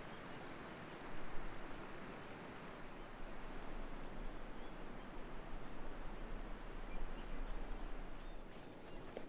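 Steady, even outdoor rush with a few faint bird chirps, and a low rumble underneath from about four seconds in.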